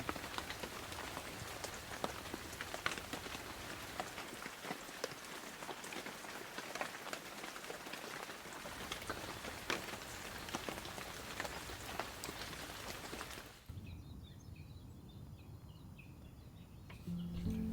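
Steady rain with many individual drops pattering. About 13 seconds in it cuts off to a quieter stretch with a few faint chirps, and music starts near the end.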